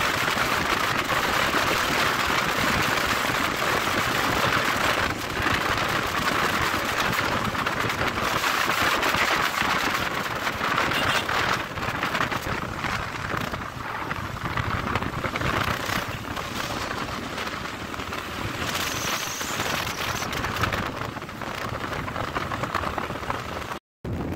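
Steady rushing noise on a moving motorcycle: wind and road noise, with no engine note standing out. It drops out abruptly for a moment near the end.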